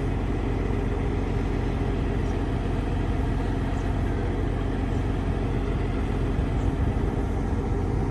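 Heavy construction machine engine running steadily with a low, even drone.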